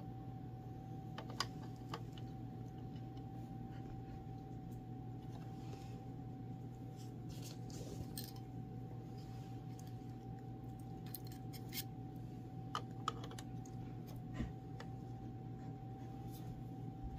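Scattered small clicks and taps of a telescope's metal and plastic fittings being handled, as a star diagonal and eyepiece are picked up and pushed into the focuser. A steady low hum with a faint thin tone runs underneath.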